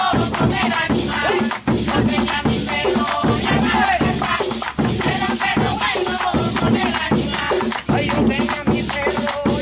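Live percussion music: a hand drum struck in a fast rhythm with a shaker rattling along, and voices singing over it with hands clapping.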